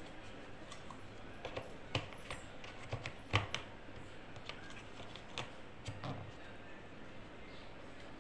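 Hollow plastic rack legs and frame knocking and clicking against each other as they are fitted together: scattered sharp taps, the loudest a little past three seconds in.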